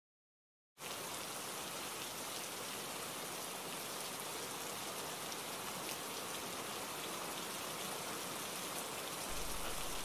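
Steady rain falling, starting after a brief silence about a second in. A low rumble joins near the end.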